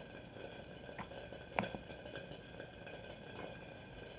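Metal spoon mashing and stirring crumbled white cheese in a bowl, with a few soft clicks and scrapes of the spoon against the bowl, the clearest about a second in and again shortly after, over a faint steady hiss.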